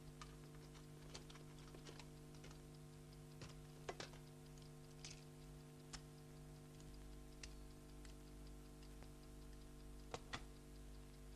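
Faint, irregular small clicks and taps of hands working the mechanism of a toy submachine gun to get at its spring, a few louder clicks about four seconds in and twice near the end, over a steady low hum.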